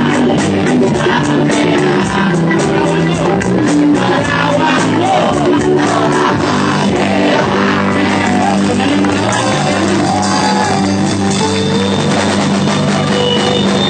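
A band playing live, loud, with a steady drum beat and a vocalist singing into the microphone over it; crowd shouting mixes in.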